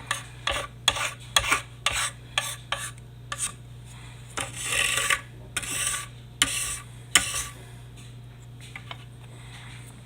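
Quick scraping and rubbing strokes, then a few longer scrapes, as the paper and cardboard layers of a firework mortar shell are worked apart by hand.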